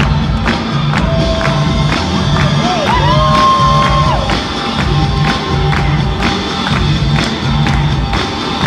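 Music with a steady beat over a pulsing bass line; a long held note steps up in pitch about three seconds in and ends a second later.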